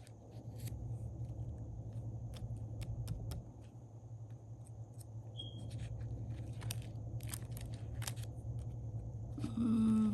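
Paper handling: sticker-book pages and sticker sheets crackling and clicking as they are leafed through, over a steady low hum. A short, louder pitched sound comes near the end.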